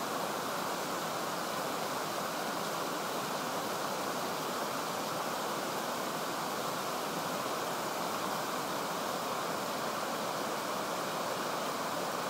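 Waterfall cascading over rock ledges: a steady rush of falling water.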